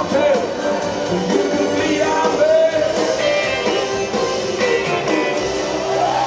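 Live rock band playing a slow rock song with a sung vocal line, electric Telecaster guitar, lap steel slide guitar and bass guitar.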